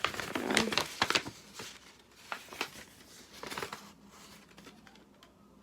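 Irregular crinkling and rustling of packaging being handled, busiest in the first few seconds and dying away toward the end.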